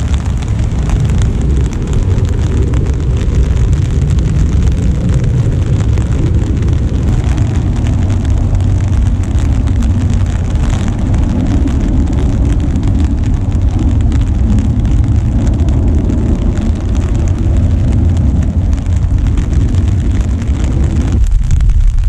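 Steady rain falling, heard under a loud, deep rumble of wind buffeting the microphone. The rumble drops away briefly near the end.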